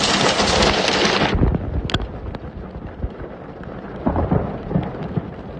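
Heavy rain and hail: a loud hiss for about the first second, then quieter with scattered sharp ticks of hailstones striking.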